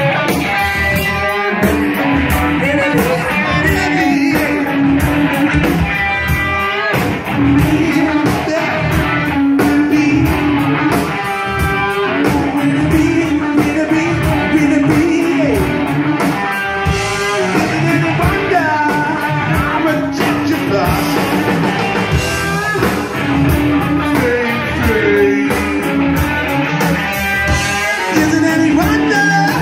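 Live rock band playing loud through a PA, with electric guitars and a drum kit keeping a steady beat.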